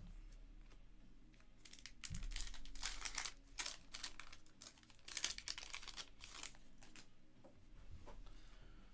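Trading-card pack wrapper crinkling and tearing as it is opened by hand, with the cards sliding against each other; the crackling comes in a run of quick strokes, busiest a couple of seconds in.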